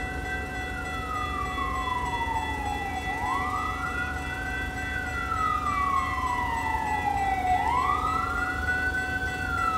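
Emergency-vehicle siren sounding a slow wail, out of sight: each cycle rises quickly in pitch and then falls slowly, about every three and a half seconds, three times over.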